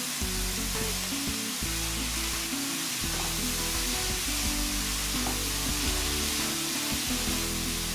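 Riced cauliflower sizzling in hot oil in a wok as it is stirred and turned with a silicone spatula. Background music with held low notes plays under the steady sizzle.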